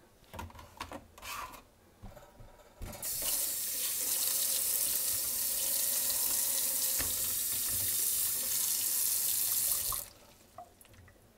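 Kitchen tap running water into a container for about seven seconds, starting about three seconds in and shutting off abruptly near the end. A few light clicks and knocks of handling come before it.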